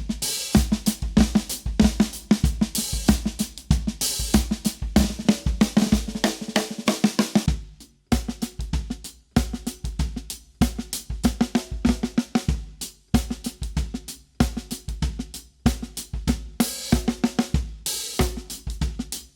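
Drum kit playing a groove that features a Gretsch Swamp Dawg 8x14 snare drum, with bass drum, hi-hat and cymbals. The playing stops briefly about eight seconds in and picks up again with a sparser groove.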